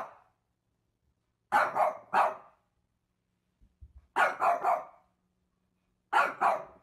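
A small dog barking in quick groups: two barks, then three, then two more.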